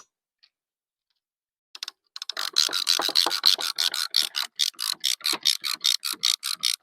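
Banding-strap tensioner ratcheting: a fast, even run of ratchet clicks, several a second, starting about two seconds in as the band around a bundle of sawmill slabs is pulled tight.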